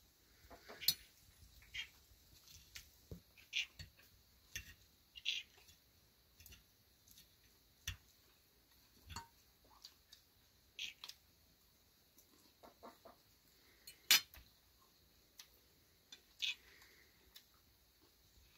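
Quiet eating sounds: forks clicking and scraping on plates and crisp bites of flaky pastry, in scattered short clicks, the sharpest about fourteen seconds in.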